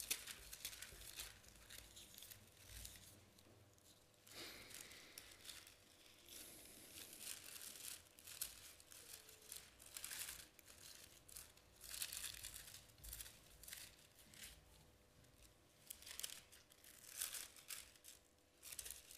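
Faint rustling of thin Bible pages being leafed through and turned, in short irregular strokes every second or two.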